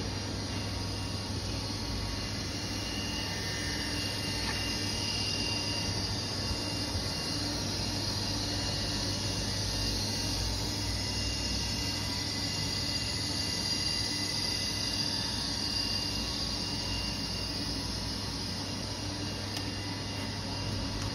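Steady drone of running machinery: a low hum with faint high whining tones over a hiss.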